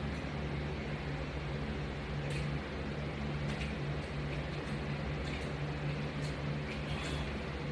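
Steady low machine hum with an even background hiss, and a few faint short sounds about two and a half, three and a half and seven seconds in.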